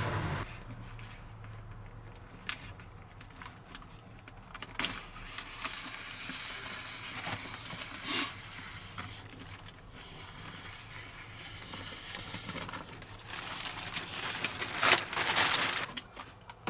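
Quiet rustling and crinkling of plastic sheeting on a truck door panel being handled and trimmed, with scattered small clicks and a louder burst of rustling near the end.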